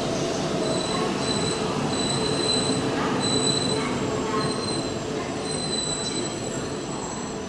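E4 series MAX double-decker Shinkansen rolling along the platform: a steady rumble of wheels on rail with thin, high squeals coming and going over it, gradually fading.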